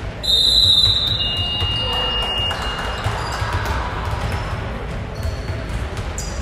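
Basketballs bouncing on a hardwood gym floor. A shrill high-pitched tone sounds near the start for about a second, followed by a thinner, steadier high tone for nearly two seconds.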